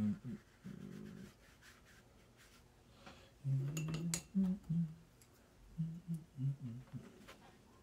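A man humming a tune to himself in short low phrases. Around the middle come a few sharp clicks and rubbing sounds as a paintbrush is worked in the watercolour palette.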